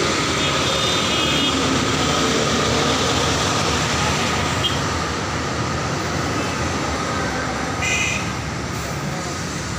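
Steady road traffic noise from passing motorcycles, auto-rickshaws and cars, with a city bus drawing up close alongside. A short high squeal sounds about eight seconds in.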